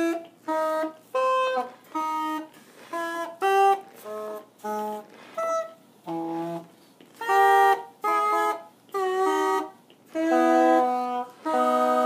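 Regulators of a Bruce Childress B-set of uilleann pipes sounding short separate notes and chords, one key press at a time, with silent gaps between them. The last two chords are held longer. The regulators are untuned.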